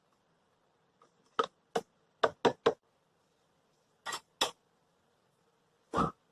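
Kitchenware knocking and clinking as cups and containers are handled: a string of short sharp taps, some in quick pairs, ending in a heavier thump.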